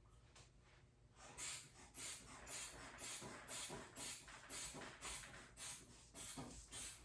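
Blood pressure cuff being inflated with a hand bulb: about eleven quick, rhythmic squeezes, roughly two a second, each a short puff of air, starting a little over a second in.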